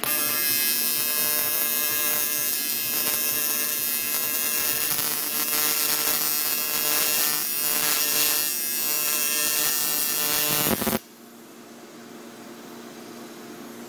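TIG welding arc on a 3-inch intake hard pipe: a steady buzz that switches on abruptly and cuts off suddenly about eleven seconds in, when the arc is broken.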